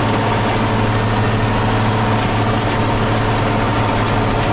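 New Holland 8160 tractor's six-cylinder non-turbo diesel running under PTO load from a 1000 RPM round baler, a steady low drone heard from inside the cab.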